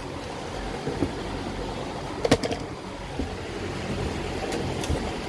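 A steady low rumble with a few short knocks and clicks, a double one a little past two seconds in.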